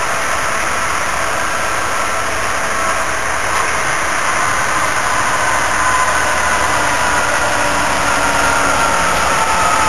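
Class 66 diesel-electric locomotive approaching at the head of a coal train, its two-stroke V12 engine giving a steady rumble with a thin whine that slides slowly lower, growing a little louder as it nears.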